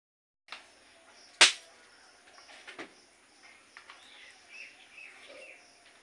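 Rose-ringed parakeet (mithu) giving a few faint, short chirps, with a single sharp click about a second and a half in as the loudest sound and a couple of lighter clicks a little later.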